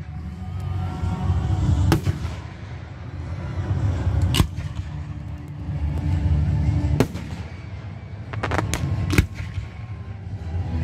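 Fireworks going off: a string of about six sharp bangs over a low rumble. Single bangs come roughly every two to three seconds, then three in quick succession near the end.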